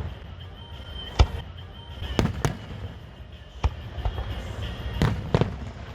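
Fireworks shells bursting: about six sharp bangs at irregular intervals, over a low rumble of distant explosions.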